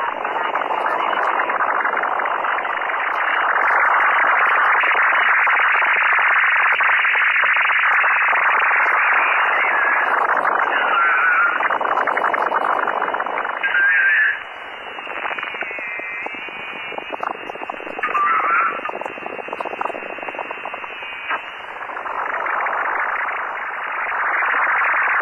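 Unidentified noisy signals on the 10 meter amateur band, received in single sideband on a Yaesu FT-950 transceiver: a steady rushing hiss cut off at about 3 kHz by the receiver's passband. Short warbling chirps come through now and then, and faint gliding tones run through the middle, where the hiss drops in level.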